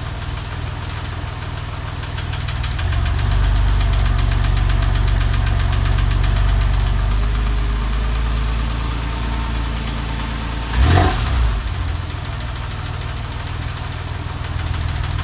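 Porsche 996's flat-six engine idling. It grows louder for a few seconds, then eases back, with one brief, sharp loud burst about two-thirds of the way through.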